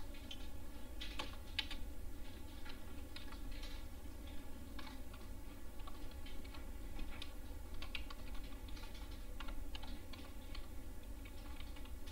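Typing on a computer keyboard: irregular, quick key clicks, with a steady low hum underneath.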